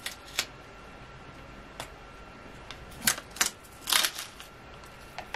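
Wide adhesive tape being peeled off its roll in several short, sharp pulls, the loudest and longest about four seconds in.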